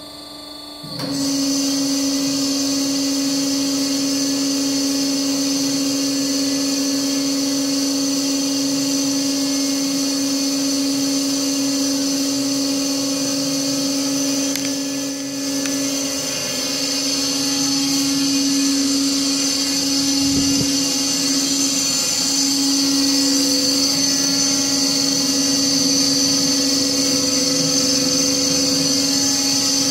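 BOMAR Workline 610.450 DGH semi-automatic metal-cutting bandsaw running, starting about a second in: a steady machine hum with a high hiss over it.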